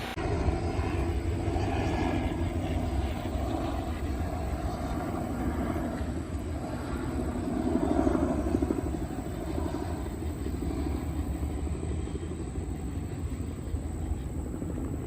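Steady engine rumble with a low drone, swelling a little about eight seconds in.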